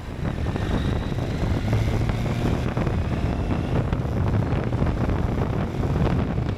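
Husqvarna Norden 901 parallel-twin motorcycle engine running under way on a gravel road, with wind rushing past and stones crackling under the tyres. The sound starts abruptly at full level.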